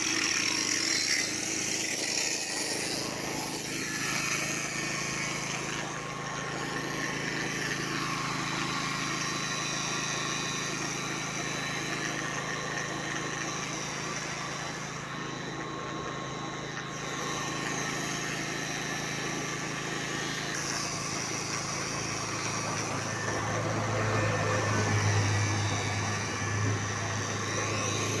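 A vehicle engine running steadily with a low hum, with the hiss of road traffic over it; the hum swells briefly a little before the end.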